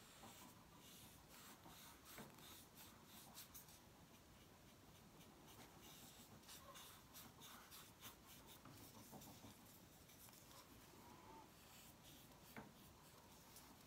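Faint, soft strokes of an angle shader paintbrush spreading acrylic paint over the hard, dried shell of a bottle gourd.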